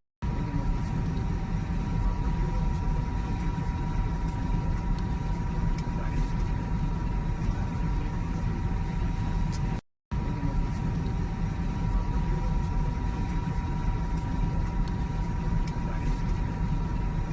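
Airliner cabin noise: a steady low rumble with a faint, even whine running through it. It drops out abruptly for a moment about ten seconds in, then resumes unchanged.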